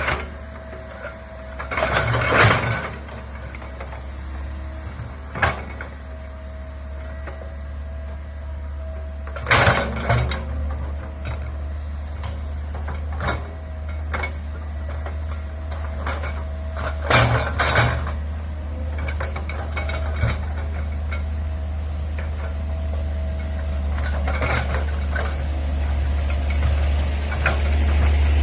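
Komatsu excavator's diesel engine running steadily, growing louder near the end. It is broken by several loud, short bursts of clattering, about five in all, several seconds apart.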